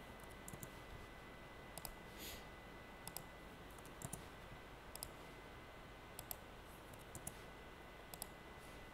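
Scattered faint computer mouse clicks, several in quick pairs, over a steady low hiss with a faint high whine.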